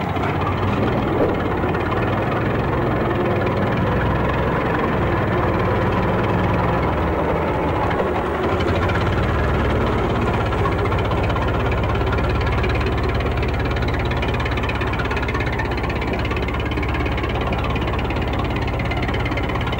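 Old tractor engine running steadily with a rapid knocking beat; its sound shifts to a heavier, faster pulse about eight seconds in.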